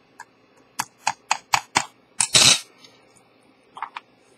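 Small sharp clicks and taps, five in quick succession, then a short scraping rustle and two faint clicks near the end, as the enamel dial of an Elgin pocket watch is pressed and seated onto its movement by hand.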